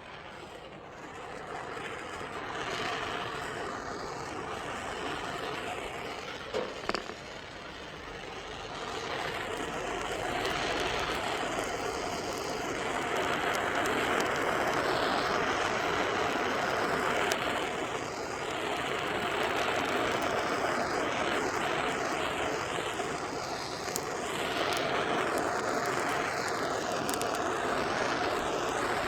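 Hand-held gas torch burning with a steady hissing rush as its blue flame singes the fine hair off a plucked rooster's skin. It gets louder about eight seconds in, and there are a couple of brief knocks a little before that.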